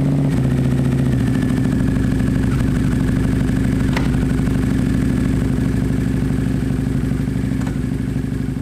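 2002 Harley-Davidson V-Rod's liquid-cooled V-twin idling steadily just after being started. A sharp click about four seconds in and a fainter one near the end, with the gearbox being shifted to find neutral.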